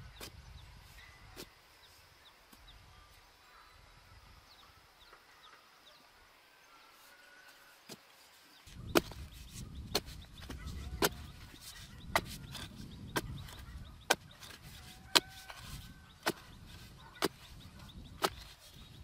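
A narrow metal digging blade on a long bamboo handle is driven into hard, stony soil about once a second, each stroke a sharp crunch over a dull thud. The strokes start about nine seconds in; before that there are only a few light clicks.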